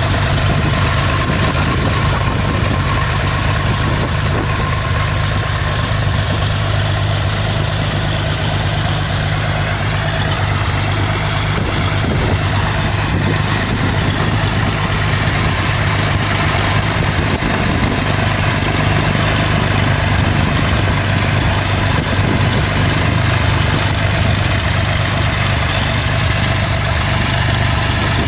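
Cessna 175's Continental GO-300 geared six-cylinder engine, uncowled, running steadily on a ground run.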